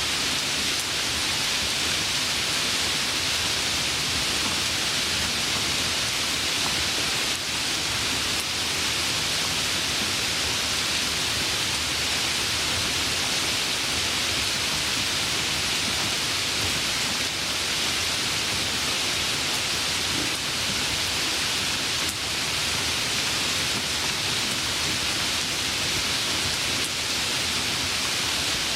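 Steady, even rain falling, a continuous hiss with no breaks.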